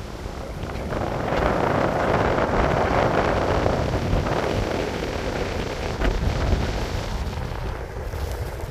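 Wind buffeting a phone microphone on a moving Onewheel: a steady rushing with a low rumble, swelling about a second in and easing off after the middle.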